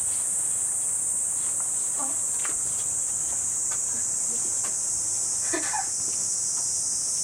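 Steady high-pitched drone of cicadas singing in chorus, unbroken throughout. A few faint clicks and a brief faint voice sound about five and a half seconds in.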